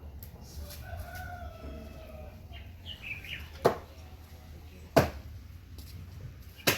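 Three sharp knocks, the second about 1.3 seconds after the first and the third about 1.7 seconds later, over a faint background with a short falling chirp shortly before the first knock.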